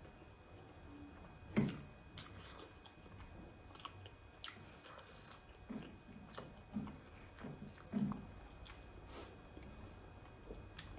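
Close-miked chewing and biting of soft steamed momo dumplings, with small wet mouth clicks. The fork taps and scrapes in a glass bowl of jhol in the second half.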